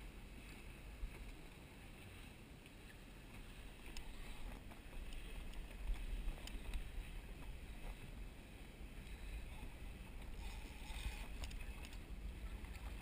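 Wind buffeting the microphone and water around a small boat's hull, a steady uneven rumble and hiss, with a few faint clicks scattered through it.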